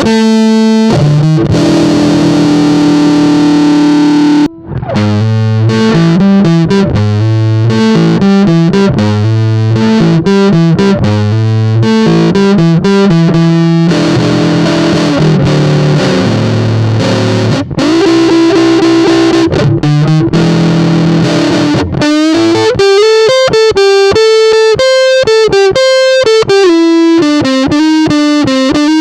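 Squier Jazzmaster electric guitar through a Big Muff-style fuzz pedal with the gain at noon, playing rhythm-and-blues riffs and chords. About 22 seconds in it changes to single-note lead licks with string bends. The guitar stops briefly about four and a half seconds in.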